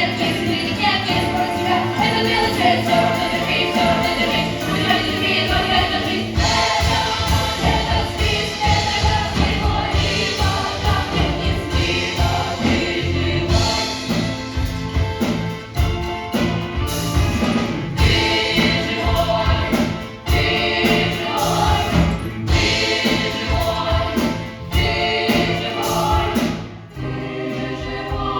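Cast of a stage musical singing a song together in chorus, over band accompaniment with a steady beat.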